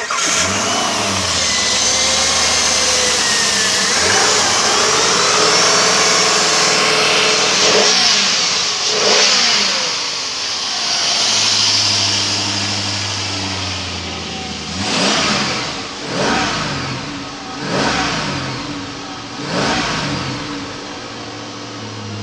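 2002 Jeep Grand Cherokee's 4.7-litre V8 running on an engine test, first at a steady fast idle, then blipped up in four quick revs in the second half before settling back to a lower idle. It sounds like a healthy engine.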